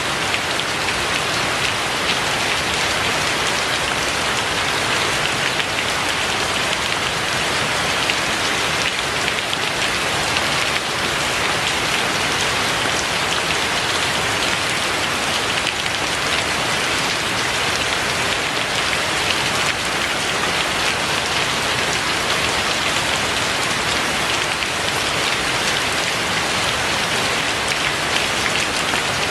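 Steady rain falling, an even, unbroken hiss of dense drops.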